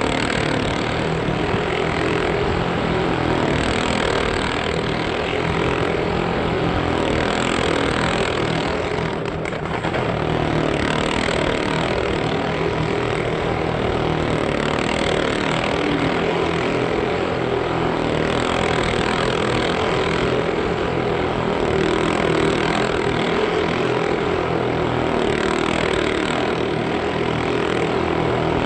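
Motorcycle engine running hard without a break as the bike circles the vertical wooden wall of a well-of-death drum, with a brief dip about ten seconds in.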